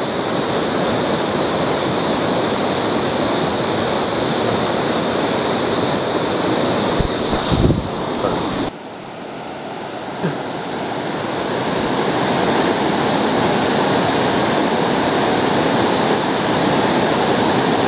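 Steady rush of river water pouring over rocks in a riffle below the spillway. About eight seconds in, a short bump of camera handling, after which the rush is briefly duller before it builds back.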